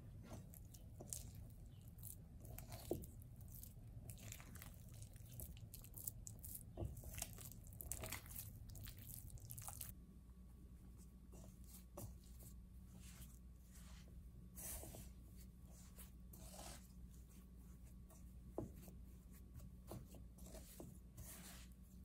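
Faint, irregular sounds of soft yeast dough being worked and kneaded by hand in a ceramic bowl.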